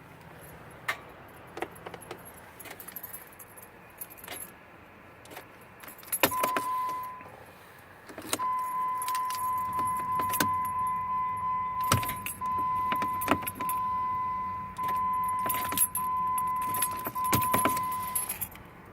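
Ignition keys jangling and sharp clicks from a 2005 Jeep Grand Cherokee's starter relay as the key is turned, with no engine cranking: the car clicks but won't turn over. A steady high electronic tone comes in about six seconds in and holds with brief breaks almost to the end.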